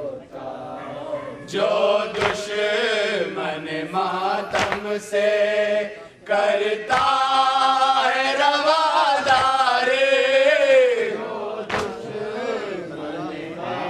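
Group of men chanting a noha (Shia mourning lament) together into a microphone, one reciter leading from a paper and the others singing along in long phrases. A few sharp knocks fall between the phrases.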